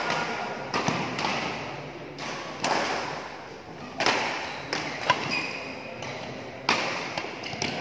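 Badminton racket strings striking a shuttlecock again and again in a rally: sharp smacks, about one every second or so, each ringing on in the hall's echo.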